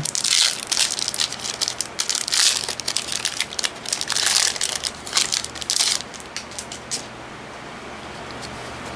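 Foil Magic: The Gathering booster pack wrapper crinkling and crackling as it is handled and torn open. It stops about six seconds in, leaving a few faint ticks.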